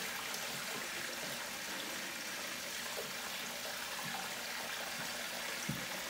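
Water poured from a 5-gallon bucket in a steady stream, splashing into the shallow water of a glass turtle tank.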